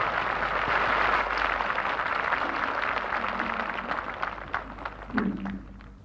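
A large crowd applauding, the clapping dying away over the last two seconds.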